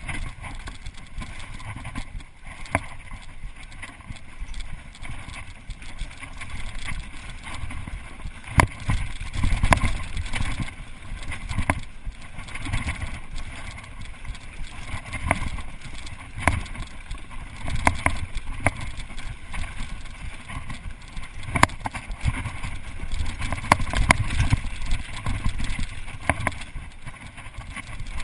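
Mountain bike riding fast down a hard-packed forest trail, heard from a GoPro on the rider or bike: a steady low rumble of tyres and rushing air, broken by frequent sharp rattles and knocks as the bike goes over bumps.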